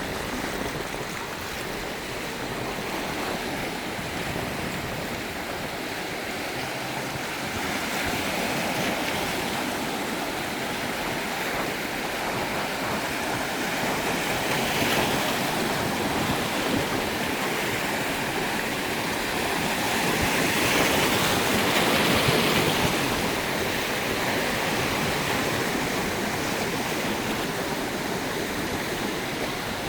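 Sea surf: waves washing ashore in a steady rush, swelling louder about halfway through and again a little later.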